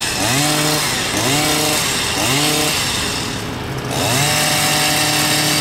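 Small two-stroke engine of a handheld garden power tool, revved in three short bursts about a second apart, then held at high speed from about four seconds in.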